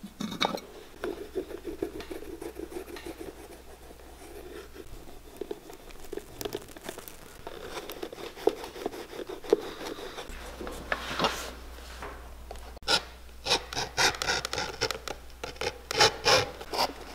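Heated hand burnishing tool rubbed back and forth along a leather boot sole edge, melting wax into the freshly dyed edge: a continuous dry rubbing at first, then from about 13 s in louder, quicker strokes with a regular rhythm.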